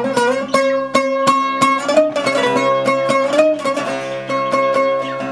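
Instrumental break in a Turkish folk song: a plucked string instrument picks a quick melody over a steady held drone.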